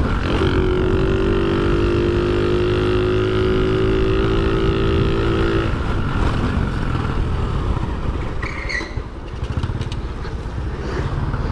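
Shineray 50cc scooter engine running at a steady pitch under throttle over wind and road rumble. The engine note drops out about six seconds in, leaving only the rumble, with a brief high squeak a couple of seconds later.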